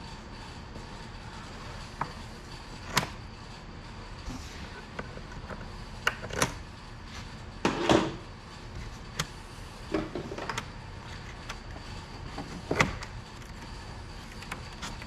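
Packing straps on a bundle of wooden beehive parts being cut, with the parts then handled: scattered sharp clicks and knocks, and a longer rustling scrape about eight seconds in.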